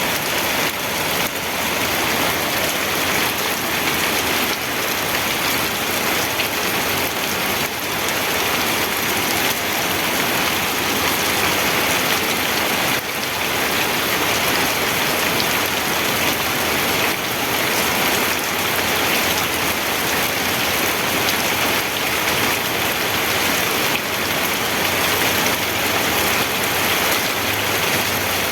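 Steady, even rainfall hitting a surface.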